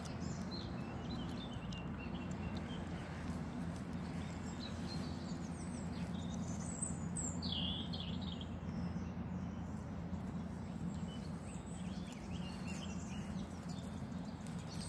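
Small birds chirping and twittering now and then, with a clearer whistled call about halfway through, over a steady low rumble of background noise.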